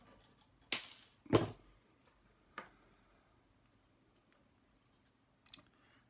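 Cutters snipping the lined-up wire ends of a shielded CAT5e cable flush: three sharp snips within the first three seconds, the second the loudest, then a faint click near the end.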